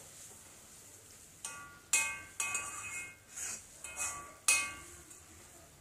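A spoon stirring in an iron kadai, knocking against the pan about six times from a second and a half in, each knock leaving a short metallic ring.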